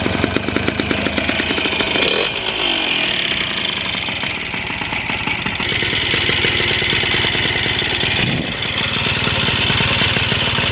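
Derbi Variant two-stroke moped engine running, blipped about two seconds in with the revs falling away, then climbing again after about eight seconds. It is noisier than it should be, which the owner puts down to an oversized carburettor running without an air filter.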